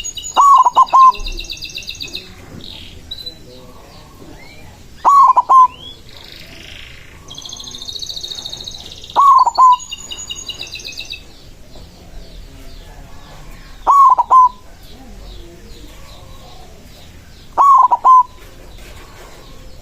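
Zebra dove (perkutut) cooing: five short, loud, stuttering coo phrases about four seconds apart. Twice between the coos comes high-pitched trilled chirping from small birds.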